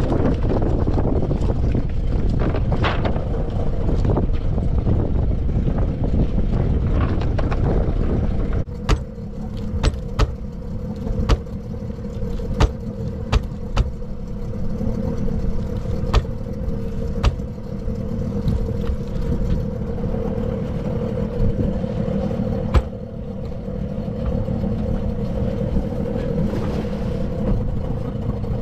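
A boat's motor idling steadily, its hum heard plainly once a heavy rumble of wind on the microphone drops away about nine seconds in. Scattered sharp knocks sound over the hum.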